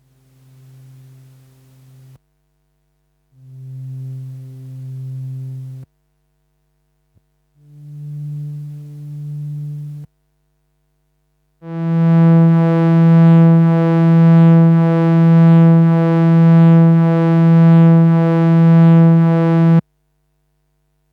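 Korg MS-20 mini analog synthesizer playing four low held notes with short gaps between them, each one louder and brighter than the last. The final note lasts about eight seconds, rich in overtones, swelling and dipping in loudness about once a second.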